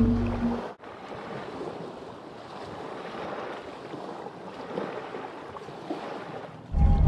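Small waves washing on a sandy beach at the water's edge, a steady even wash. Music fades out in the first second and comes back in near the end.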